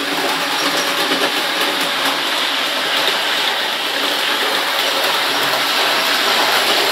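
00 gauge model Warship diesel locomotive running on the layout's track pulling a rake of wagons: a steady whir of the small motor and wheels with faint ticking over the track, growing slowly louder as the train comes nearer.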